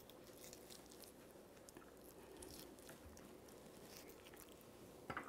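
Faint, quiet handling of raw meat: a knife pricking holes in a leg of lamb and fingers pushing garlic slivers in, heard as small scattered clicks and crunches over a faint steady hum, with one sharper knock near the end.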